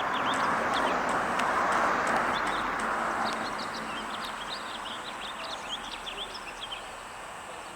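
Small birds chirping in quick, repeated short notes over a broad rushing background noise that slowly fades away.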